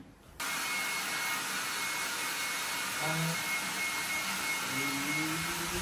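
Handheld hair dryer switched on about half a second in, blowing steadily with a faint high whine.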